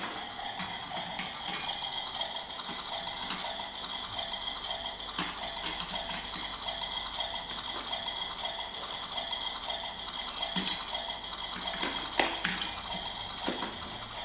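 Scattered light clicks and clinks of dishes and utensils being handled, with one sharper knock about ten and a half seconds in, over a faint steady high whine.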